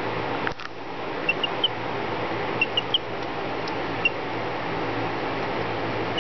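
Baby chick peeping: two quick runs of three short, high peeps, then a single peep, over a steady background hum and hiss.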